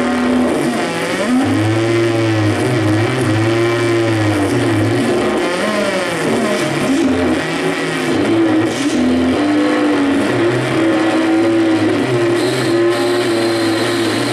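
Live electronic noise music from a tabletop rig of chained effects pedals: a loud, continuous wavering tone that swoops up and down in pitch in repeated arcs, over a low buzzing drone that cuts in and out.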